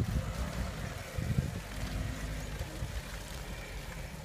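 Lada Niva 4x4 engine running as the car crawls through mud, under irregular low rumbling from wind on the microphone.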